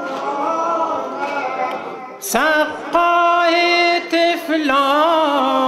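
Unaccompanied Persian mourning chant (latmiya) with no instruments. Voices hold a sung line, then about two seconds in a stronger single voice comes in with a sliding attack on 'saqqā' (water-bearer), holds a long note and ornaments it with wavering turns near the end.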